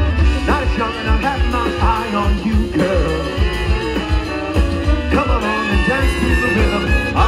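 Live swing band playing, with a steady beat.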